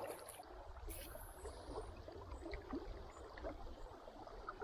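Faint river water lapping and trickling around a kayak, over a low rumble.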